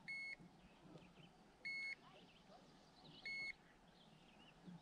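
Handheld digital fish scale beeping three times, short high electronic beeps about a second and a half apart, as it weighs a hanging bass.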